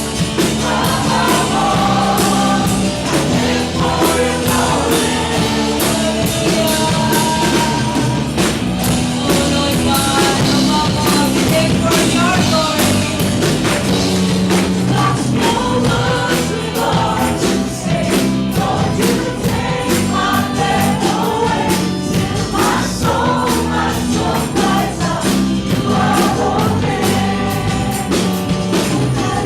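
Church worship singing with a live band: several voices sing a contemporary worship song over steady drums and instruments.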